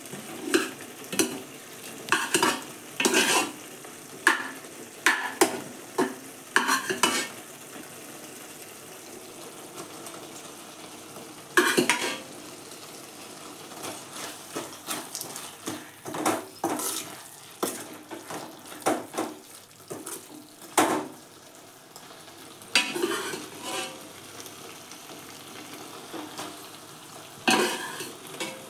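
A spoon scraping and knocking irregularly against a metal pan as cooked rice is stirred into a paneer and vegetable masala, with the masala frying in a steady low sizzle underneath.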